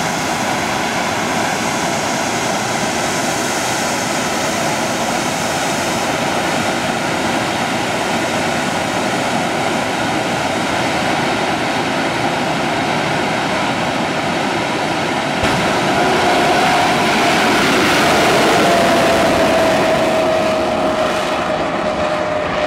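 Twin Rolls-Royce Viper jet engines of a jet-powered fire truck running with a steady loud rush and whine, then surging louder about fifteen seconds in as the truck launches, with a whining tone that slowly falls in pitch as it pulls away.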